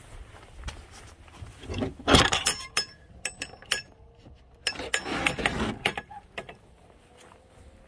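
Metal latch on a wooden fence gate being worked open: a run of sharp metallic clinks and rattles, with the loudest knock about two seconds in, then more clattering and knocking as the gate swings open about five seconds in.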